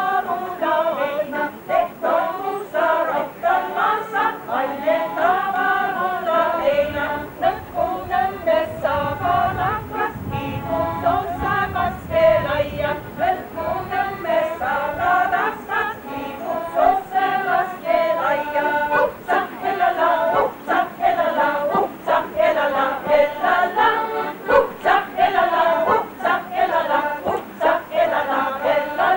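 Folk choir singing a cappella.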